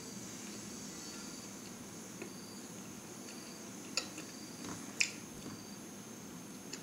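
Soft sounds of a person chewing bread, with a few sharp mouth or tearing clicks, the clearest about four seconds in and another a second later, over a faint steady high-pitched hum.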